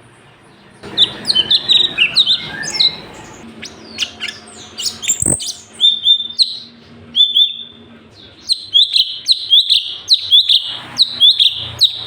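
Cucak cungkok singing: after a quiet second, rapid volleys of short, sharp, high chirping notes with brief pauses between runs, the full-tilt 'tembakan' song. A single sharp click about five seconds in.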